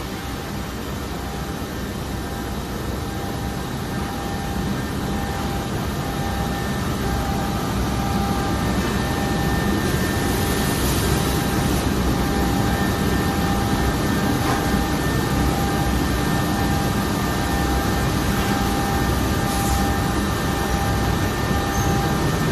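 Homag Vantech 480 V12 Pro CNC router running: a steady mechanical hum and hiss with faint high whining tones, getting a little louder over the first several seconds and then holding.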